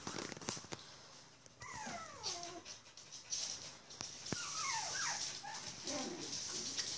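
Bichon Frise puppies whimpering: two high whines falling in pitch, about two seconds in and again near five seconds, with scattered light clicks.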